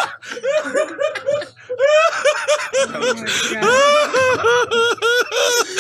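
Two men laughing hard, in quick repeated 'ha' bursts that come about five a second in the second half.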